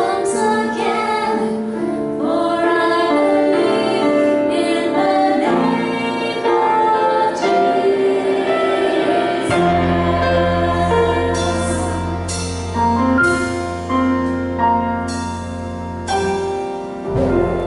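Women singing a worship song over an accompaniment. About halfway in a deep bass note comes in and is held under the voices, and the song closes on a held note near the end.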